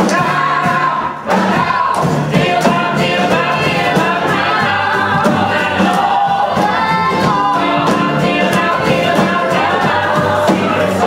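A group of voices singing together in chorus over a rootsy folk-rock accompaniment with a steady beat and bass, with a brief drop in level about a second in.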